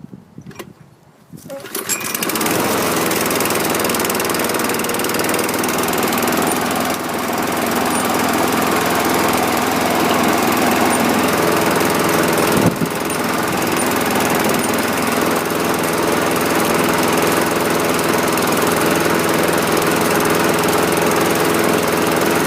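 The 7.25 hp engine of a 2011 Toro Recycler 20331 walk-behind mower starts about two seconds in and then runs steadily. Its speed is a little low, which the owner means to adjust. A single sharp knock sounds about midway.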